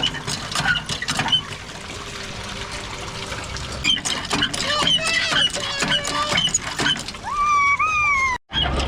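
Water pouring and trickling in a duck-race trough, with many short high squeaks. A child's high squeal rises and falls near the end, then the sound cuts off abruptly.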